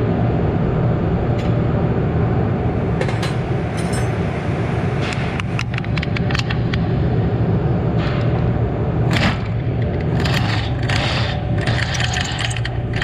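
Clinks, clicks and scrapes of hand tools and metal parts being handled while a car's rear shock absorber is unbolted, over a steady low workshop hum.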